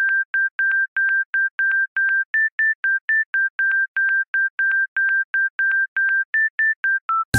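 A rapid string of short electronic beeps, about three or four a second, some shorter and some longer, nearly all at one pitch with a few a little higher and a last, lower beep. Music comes in right at the very end.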